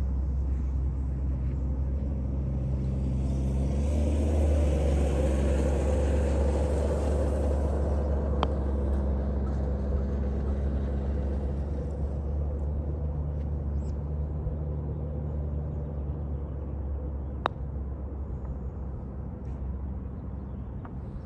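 Aircraft engine noise: a steady low rumble with a rushing sound that swells about four seconds in and fades away by about twelve seconds. Two sharp clicks, about eight and seventeen seconds in.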